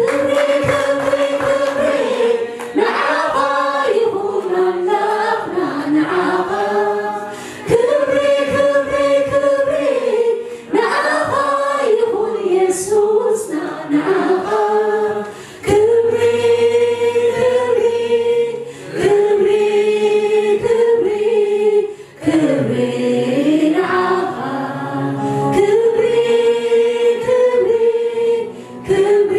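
A gospel worship choir singing a cappella, a woman's lead voice with the group joining, in long held phrases with brief breaks between them.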